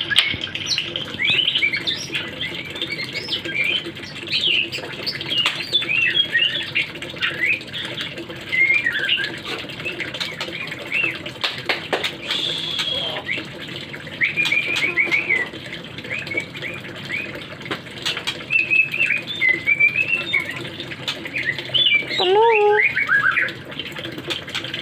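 A pet murai songbird singing a long, varied song of quick whistles and sliding notes, with a louder run of lower notes near the end.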